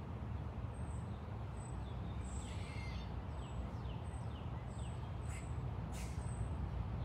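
Outdoor ambience: a steady low rumble with faint bird calls, a run of short falling notes through the middle.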